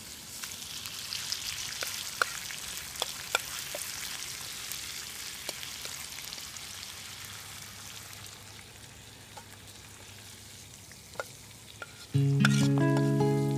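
Catfish fillets sizzling in oil in a metal skillet, with a metal fork clicking and scraping against the pan as the pieces are turned. The sizzle gradually dies down. Near the end, music comes in suddenly and loudly.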